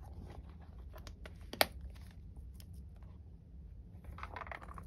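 Handling a quilted leather Chanel wallet on chain: light clicks and taps from the leather and its metal hardware, with one sharp click about a second and a half in, then a short rustle near the end.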